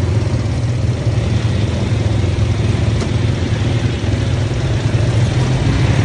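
ATV engine running at low, steady revs, with one sharp click about halfway through.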